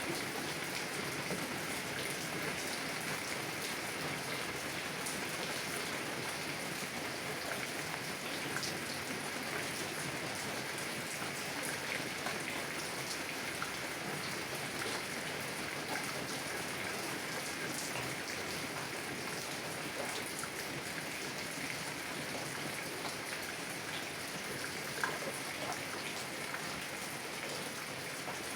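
Heavy rain drumming on a car's windows and roof, heard from inside the car: a steady, dense hiss with many small drop ticks scattered through it.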